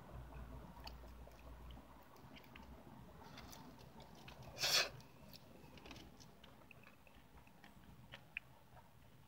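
Close-up mouth sounds of eating pineapple pie with whipped cream by hand: soft wet chewing, smacks and small clicks, with one short, louder burst of noise about halfway through.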